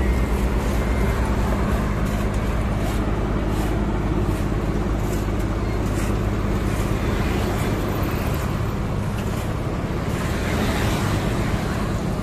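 Heavy diesel engine noise from an asphalt milling machine and its dump truck working steadily, with scattered light clicks and scrapes. A passing vehicle adds a rush near the end.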